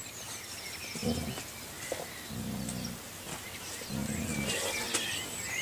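Golden retrievers play-growling as a puppy tussles with an adult dog: three short, low growls, about a second and a half apart. Small birds chirp in the background.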